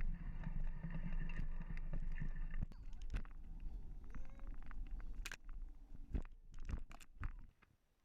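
Mountain bike riding on a dirt trail: a steady rush of tyre and wind noise that drops away about two and a half seconds in, then scattered clicks and knocks from the bike over rough ground.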